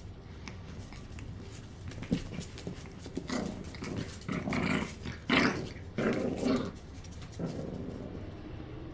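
Small terrier puppies and their mother play-fighting, with about four short bursts of growling in the middle.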